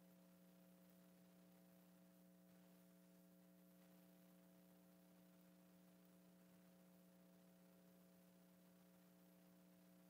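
Near silence with a faint, steady electrical hum of several held tones.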